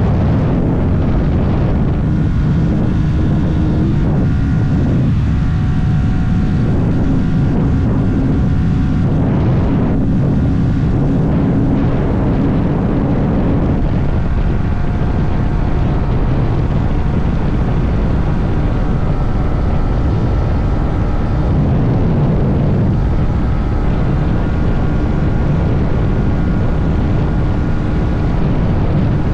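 Yamaha R125's stock single-cylinder four-stroke engine running under way on the road, its note rising and falling a few times as the bike changes speed, over wind noise.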